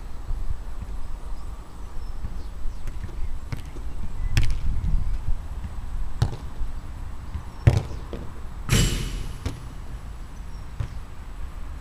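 A football thudding as it is kicked and bounced on an artificial court, a handful of separate hits a second or two apart, with one louder ringing impact near the end, under a low wind rumble on the microphone.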